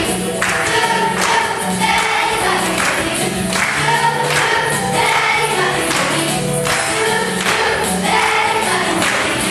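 Children's choir singing a song with a musical accompaniment that keeps a steady beat.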